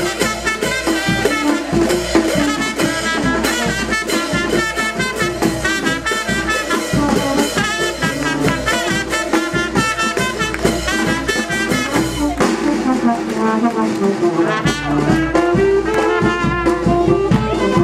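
Brass band music for a marinera norteña, with trumpets and trombones playing a lively melody over a steady dance rhythm.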